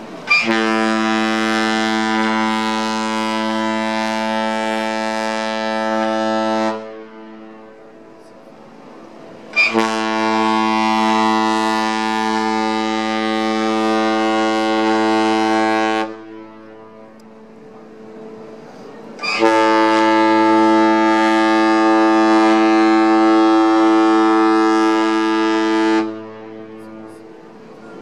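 The cruise ship Volendam's horn sounding three long, steady blasts of about six seconds each, a few seconds apart.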